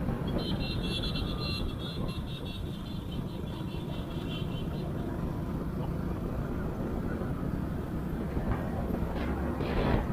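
Motorbike on the move: a steady low rumble of engine and road noise. For the first few seconds a high, rapidly pulsing tone sounds over it, and a short swell of noise comes near the end.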